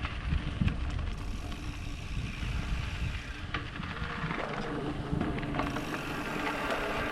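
Electric bike being ridden in strong wind: wind rumbles and buffets the microphone, with a steady low hum from the bike running through it.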